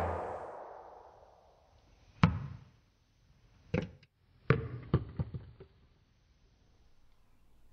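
The echo of a loud shot dies away in the first second. Then a series of sharp knocks follows: one about two seconds in, another near four seconds, then a quick run of bounces around five seconds, as a foam toy-blaster dart drops and bounces on a wooden floor.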